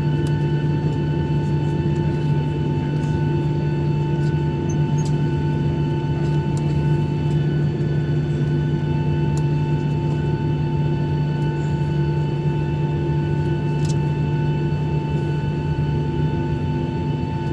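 Steady cabin hum inside a Boeing 737-800 on the ground after landing: a low drone with several thin, even whining tones above it, unchanging throughout.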